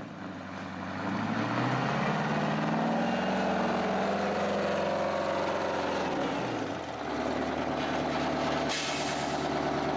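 Diesel engine of a rat rod with straight upright exhaust stacks, running loud as the car drives up: the engine speed climbs over the first couple of seconds, holds steady, then drops back to a lower steady run about seven seconds in.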